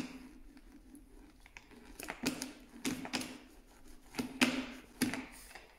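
Foam hand pressure roller rolled in several separate passes over self-adhesive film on a wooden table tennis blade, pressing the film down.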